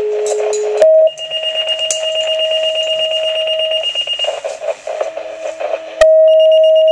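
Fire dispatch two-tone paging tones sounding to alert the station: a lower steady tone for about a second, then a higher tone held for about three seconds. A loud steady tone starts again about six seconds in, and gear clinks and rustles underneath.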